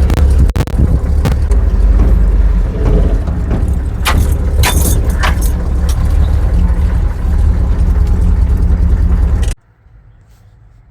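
Vehicle engine running loud with a deep, steady rumble, then stopping suddenly about nine and a half seconds in.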